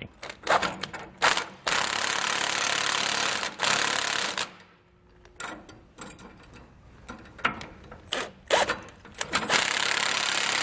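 A power wrench on a 19 mm socket and extension runs down the nylon locking nuts on the leaf-spring U-bolt clamps. It goes in three runs of one to two seconds, with clicks and knocks between them as the socket is moved from nut to nut.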